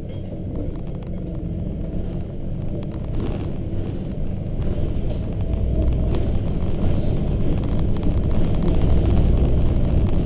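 Volvo B7RLE single-deck bus's diesel engine and road noise inside the cabin, a low rumble growing steadily louder as the bus accelerates along a straight road.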